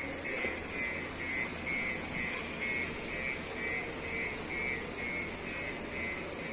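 An insect chirping in a steady rhythm, about two short high chirps a second, over a faint background hum.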